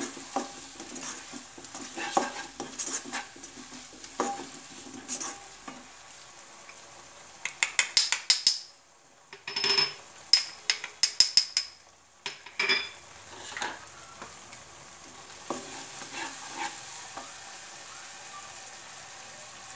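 Spatula stirring and scraping shredded cabbage and capsicum frying in a nonstick kadai, over a steady sizzle. About halfway through comes a run of sharp, loud taps against the pan; near the end the stirring eases and mostly the sizzle remains.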